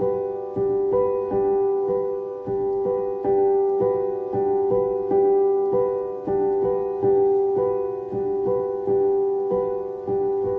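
Background piano music: a gentle, repeating figure of single notes struck about two to three times a second, each note fading before the next.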